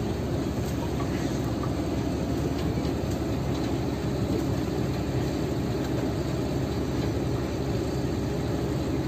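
Diesel engine of a Sany SR150C rotary drilling rig running steadily at a constant speed, a low, even rumble.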